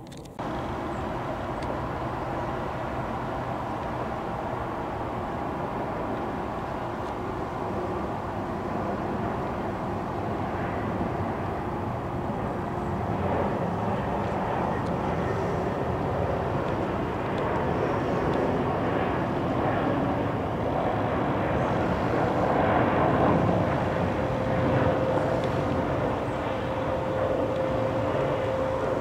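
Boeing 737-800 airliner with CFM56 turbofan engines flying overhead on its landing approach: a steady jet rumble that slowly builds to its loudest a little over two-thirds of the way through, with a steady whine joining in at about that point.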